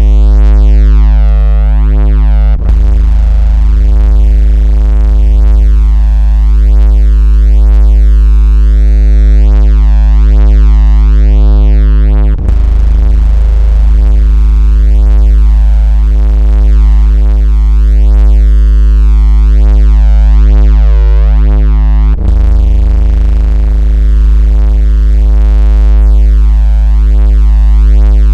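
Loud, steady, synthesized low buzzing tone at about 56 Hz with a stack of overtones, made to make a phone vibrate and push water out of its speaker. It drops out for an instant and restarts about every ten seconds, three times.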